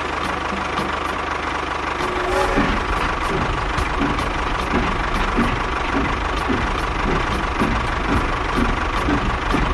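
A small tractor-type engine idling with an even, repeating knock.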